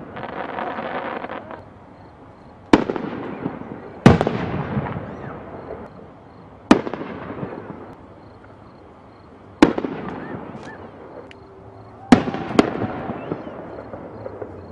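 Aerial fireworks shells bursting overhead: six sharp booms a few seconds apart, the last two in quick succession, each trailing off in a fading rumble.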